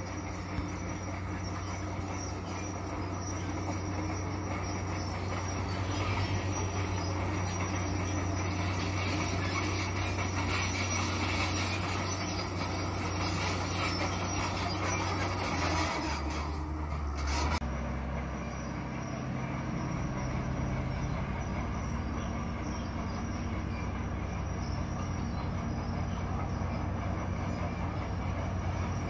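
Crawler bulldozer's diesel engine running steadily under load, with its steel tracks squealing and clanking as it pushes crushed stone. About two-thirds of the way through, the engine note drops to a different steady drone.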